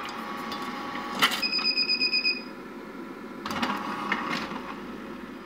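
Angel 7500 twin-gear juicer jamming on an overfilled feed chute. The gears strain with a rapid pulsing grind, and the overload sensor gives a steady electronic beep for about a second. The machine then stops and the gears turn in automatic reverse to free the jam.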